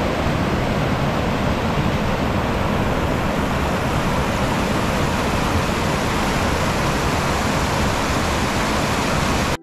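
Mountain stream rushing over boulders in small cascades: a loud, steady rush of water.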